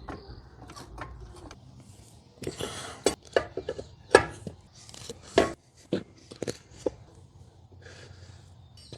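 Irregular knocks and clatter of things being handled and set down, with a brief scraping rustle about two and a half seconds in.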